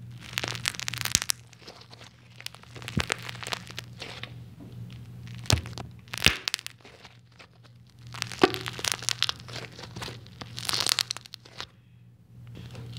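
Light, airy slime squeezed and poked by hand, making an irregular crackling of small pops and squelches as trapped air bubbles burst: the slime's bubbling noise.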